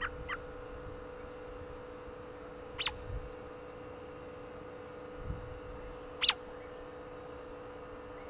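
American robin giving short, sharp chirps, each falling steeply in pitch. Two quick small chirps come at the start, then single chirps about three and six seconds in, the last the loudest. Low gusts of wind rumble between them.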